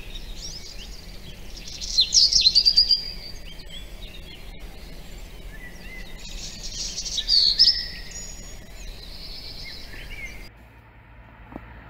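Small songbirds singing: loud rapid trilling phrases about two seconds in and again around seven seconds, with scattered high chirps between. The song cuts off suddenly near the end, leaving fainter background noise.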